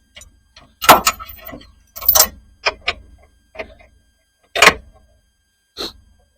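A series of about seven separate knocks and clanks of things being handled and set down, with a rattling clatter after the loudest one, about a second in.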